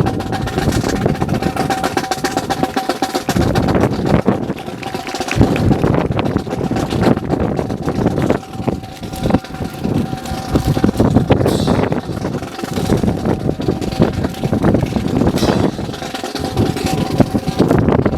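Drill rifles being spun, caught and slapped by hand in a ceremonial rifle drill: a busy run of sharp wooden clacks and knocks. At times a steady hum sits beneath them.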